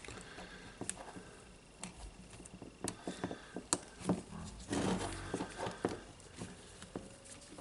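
Scattered light clicks and taps of small parts being handled while wiring a rotary hammer's switch and LED light, with a busier stretch of clicking and rustling about five seconds in.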